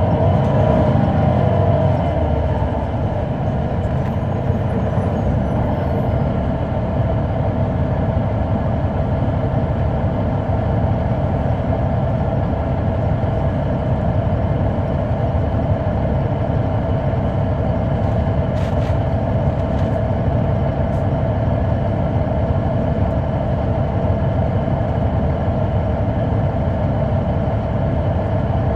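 The Caterpillar C9 ACERT diesel engine of a 2004 Neoplan AN459 articulated bus running steadily, heard from inside the bus: a low drone with a steady whine over it. The whine dips slightly in the first couple of seconds, then holds.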